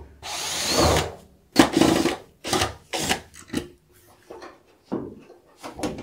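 Cordless drill spinning for about a second as it backs out a screw, then the sheet-metal lint duct cover scraping and knocking in a series of short clunks as it is worked loose and pulled down off the dryer.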